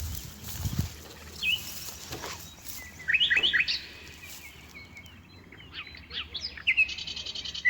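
Small birds chirping: clusters of short, quick rising chirps, the loudest run about three seconds in, with a buzzy trill starting near the end.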